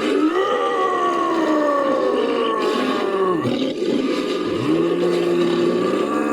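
Roaring calls of an ape-like caveman creature sound effect, made from voice and animated-character roars. One long call slides down in pitch, and after a short break about four seconds in, a second call holds steady and then drops.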